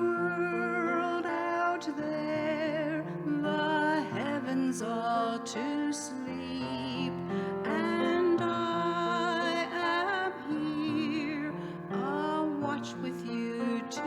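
A women's vocal trio singing a gentle lullaby-style Christmas song with vibrato, accompanied by piano and flute.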